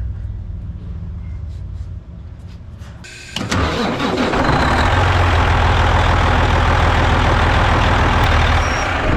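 Heavy truck's diesel engine started after a 10-gallon oil change: it catches suddenly about three seconds in and settles into a loud, steady idle, with almost 50 pounds of oil pressure at idle.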